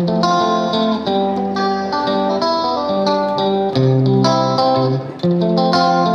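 Background instrumental music: a melody of short, distinct notes over changing low bass notes, at a steady level.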